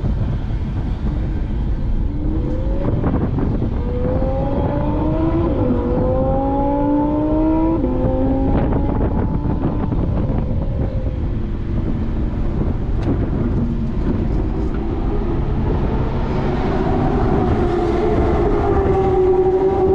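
Porsche 718 Boxster GTS engine accelerating hard under a heavy rumble of road and wind noise. Its pitch climbs and drops back several times in the first half, like upshifts through the gears, then runs steadier at speed.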